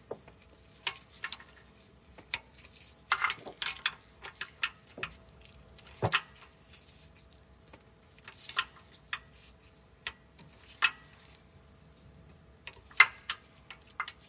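A 1/4-inch torque wrench ratcheting and clicking as the oil pump pickup bolts are tightened to 89 inch-pounds: scattered metallic clicks and ticks, some in quick clusters.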